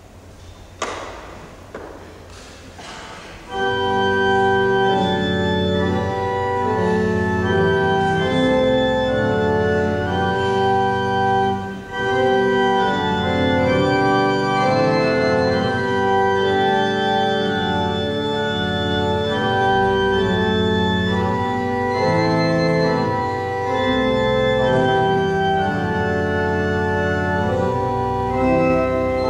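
A few knocks in the first three seconds, then a church organ starts playing about three and a half seconds in: sustained chords changing slowly, with a short break near the middle.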